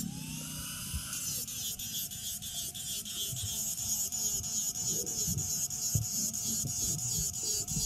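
Borewell drilling rig machinery running: a whining tone that climbs in pitch over the first second, then wavers up and down about twice a second, over a steady rapid ticking and hiss.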